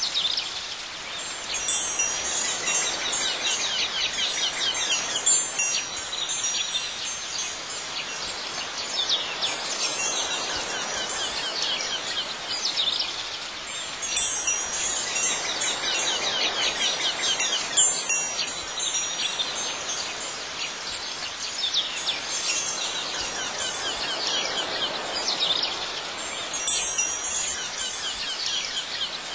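Wind chimes tinkling steadily, with brighter clusters of strikes swelling every few seconds; the pattern repeats about every twelve seconds, as a looped recording does.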